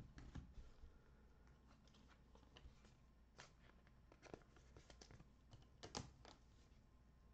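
Near silence: room tone with a few faint clicks and light rustles from trading cards being handled and set on their stands.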